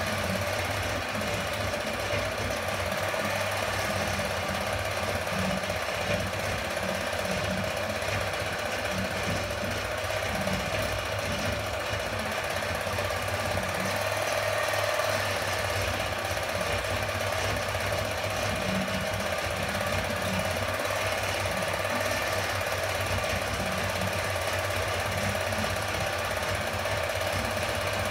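8mm film projector running, its mechanism giving a steady, even mechanical clatter.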